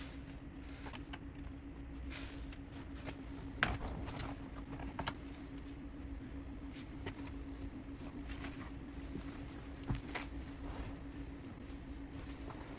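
Light clicks and knocks of parts being handled during an installation inside a car, with a few sharper knocks, over a steady low hum.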